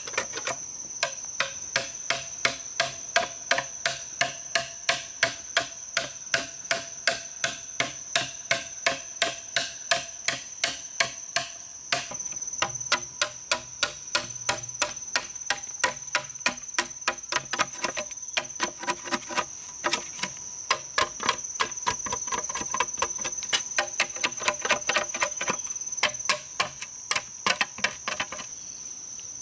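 Machete chopping a notch into a thick green bamboo pole: sharp knocks, about two or three a second, with wood chips splitting off. A steady high-pitched insect drone runs underneath.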